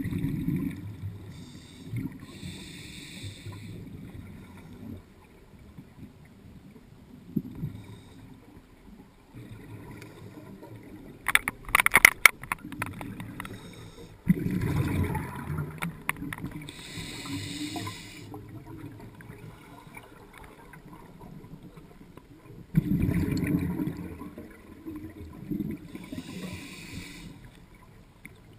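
Scuba diver breathing through a regulator underwater: hissing inhales alternating with bubbling exhales, a few slow breaths. A quick cluster of sharp clicks about twelve seconds in.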